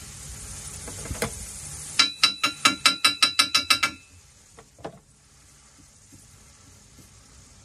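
A small hammer rapping a freshly stick-welded 316 stainless steel box-section frame about a dozen times in quick succession, roughly six blows a second, each with a ringing metallic tone, chipping slag off the weld. Two lighter knocks follow.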